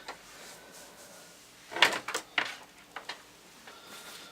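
Small objects being handled on a workbench: a quick cluster of clicks and knocks about two seconds in, then another single knock.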